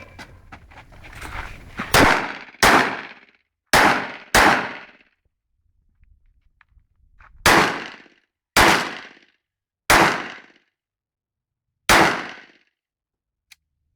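X9 Tactical pistol firing eight shots in a practical shooting stage: two quick pairs, then four single shots spaced a second or more apart, each with a short echo trailing off.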